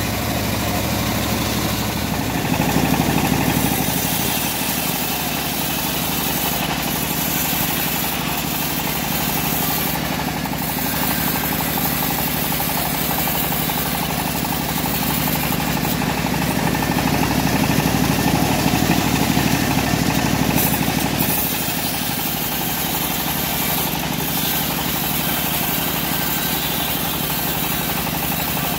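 Homemade bandsaw sawmill running steadily as its blade saws lengthwise through a short teak log.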